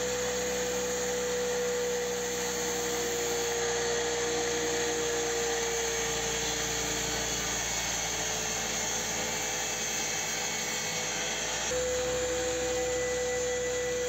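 Washing-machine motor spinning a plywood bandsaw wheel through a belt on its hub, running steadily with a whine, while sandpaper held against the spinning rim rubs it smooth after turning. The whine sags slightly in pitch partway through, then changes abruptly near the end.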